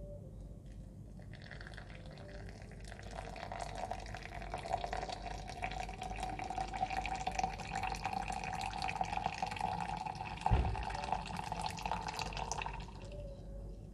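Hot water, about 92 °C, poured in a thin stream from a gooseneck kettle into an AeroPress over ground coffee, a steady trickle with a ringing tone as the chamber fills: the brew pour up to 150 ml. A single low knock about ten and a half seconds in.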